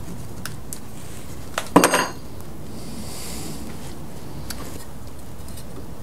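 A metal hand tool set down on a wooden workbench: one sharp clatter with a brief ring about two seconds in, with a few light clicks of handling around it.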